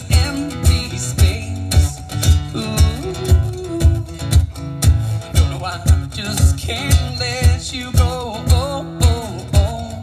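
Live acoustic guitar strummed over a cajon beat, with low thumps about twice a second.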